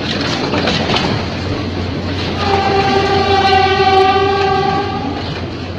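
Ex-JR 203 series electric multiple unit running on the rails, with clicks over rail joints in the first second. A train horn sounds one long steady blast from about two and a half seconds in to about five seconds.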